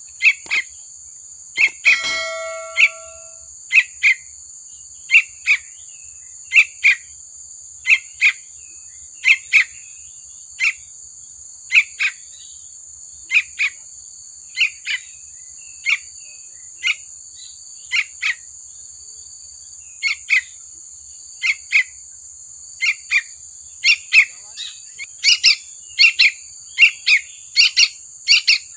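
Fledgling yellow-vented bulbul giving short, sharp chick calls, about one or two a second, often in pairs and coming faster near the end, over a steady high insect-like drone. A brief ringing tone sounds about two seconds in.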